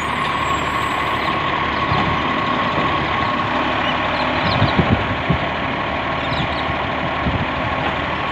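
Side-loader garbage truck running at the kerb with a steady whine as its automated arm lifts a wheelie bin and tips it over the hopper. About five seconds in come a few loud knocks as the upturned bin is shaken out.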